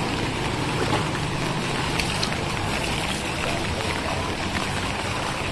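Steady wash of water noise from a flooded street, the floodwater moving along the road.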